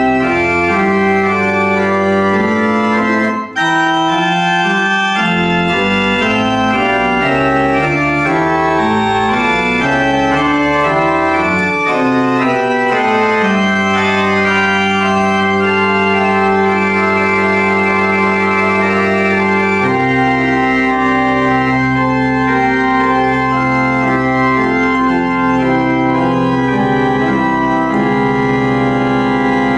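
Pipe organ playing full sustained chords that change every second or so, with a very brief break about three seconds in. From about twenty seconds in it holds one long chord over a low bass note.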